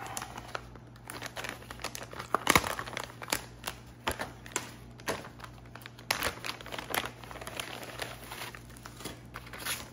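Clear plastic packaging crinkling and crackling as it is handled, in irregular bursts, with the sharpest crackle about two and a half seconds in.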